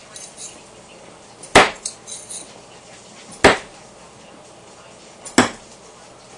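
Three thrown knives striking a wooden 2x4 target one after another, about two seconds apart, each a sharp single impact followed by a few light clicks.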